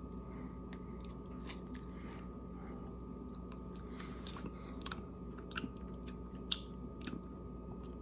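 Faint mouth sounds of someone tasting sour slime gel candy: scattered small lip and tongue clicks, more frequent in the second half, over a steady faint hum.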